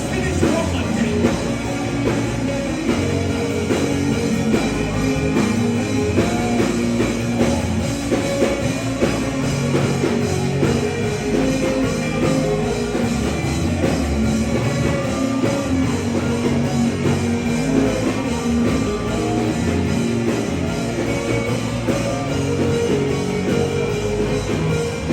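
Band music with drum kit and guitar, played steadily and loud, with some singing.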